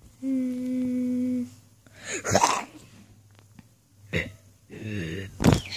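A child voicing sound effects for a stuffed-animal fight: a steady hummed note held for about a second, then a few short breathy bursts and a brief voiced grunt near the end.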